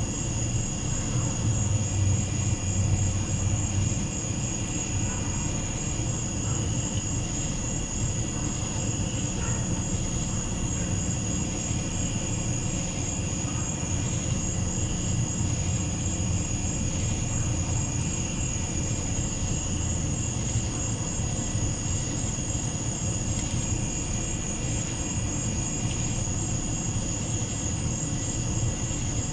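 Night insect chorus: a steady, high-pitched pulsing trill of crickets or katydids, over a continuous low rumble that is a little louder in the first few seconds.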